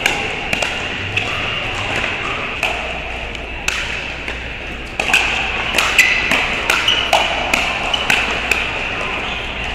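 Pickleball paddles striking a hard plastic ball: sharp pops, a few scattered at first, then a quick exchange of about two to three hits a second from about five seconds in, over a steady background din of the hall.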